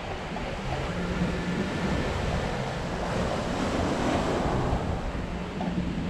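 Ocean waves washing onto a sandy beach close by, one wave swelling and breaking about three to five seconds in, with wind rumbling on the microphone.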